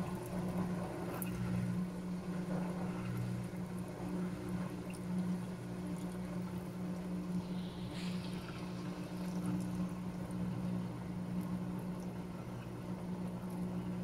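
Panasonic 16 kg top-load washing machine running water into its drum onto a load of wet jeans, over a steady low machine hum, as it fills for a rinse.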